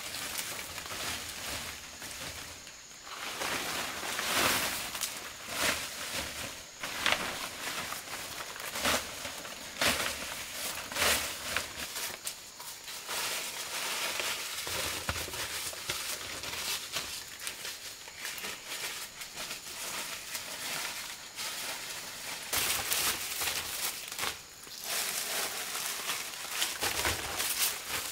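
Leaves being gathered and spread by hand over loose earth: irregular rustling and crackling of dry and fresh forest-floor leaves, with sharper crackles here and there. A faint steady high-pitched whine runs underneath until near the end.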